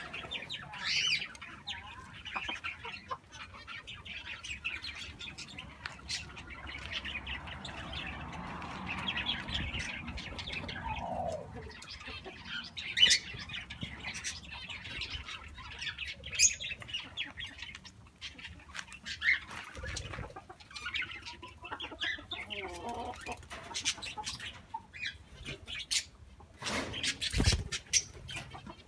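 Aviary birds: small cage birds chirping, chickens clucking, and wings flapping through the wire. A few sharp knocks, with the loudest burst of knocking and flapping near the end.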